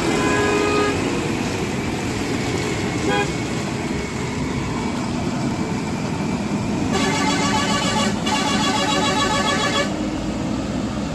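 Road traffic: a JCB backhoe loader's diesel engine running as it drives past, with vehicle horns sounding. A harsh, rapidly pulsing tone sounds for about three seconds past the middle.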